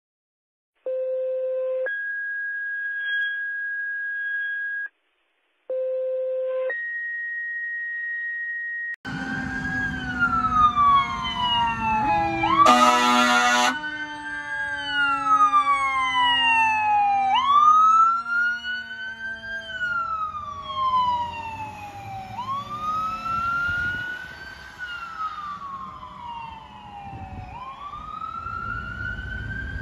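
A two-tone dispatch alert: a short low tone followed by a longer, higher steady tone, sounded twice. Then a fire engine's siren wails over and over, each cycle rising quickly and falling away slowly, with one air horn blast shortly after the siren begins.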